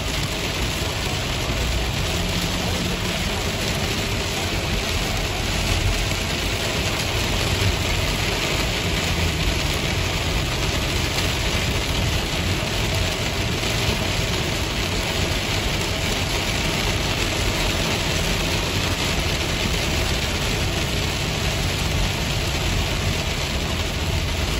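Heavy rain falling on a car's roof and windshield, heard from inside the cabin, over the steady rumble of tyres and engine on a wet highway. A constant, even hiss with no breaks.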